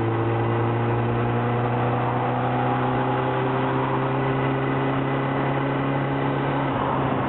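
Triumph Daytona 600's inline four-cylinder engine running at a steady speed, its pitch creeping slowly upward.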